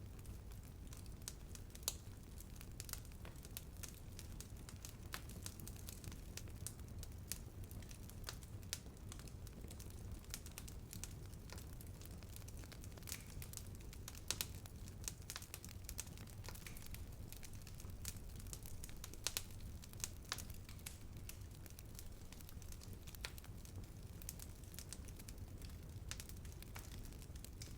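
Wood fire burning: a steady low rumble with irregular crackles and snaps, a few louder pops among them.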